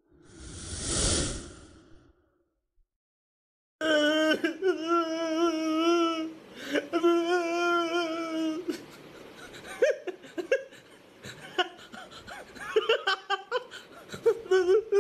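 A splash of water in the first two seconds, then a man wailing and sobbing in long cries that waver in pitch, broken by gasping breaths.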